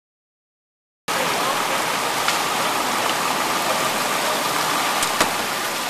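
Floodwater rushing steadily, cutting in abruptly about a second in, with a few faint clicks over it.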